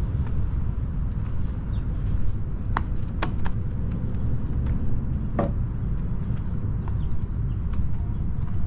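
Footsteps while walking, a handful of irregular sharp knocks with the loudest about five seconds in, over a loud, steady low rumble.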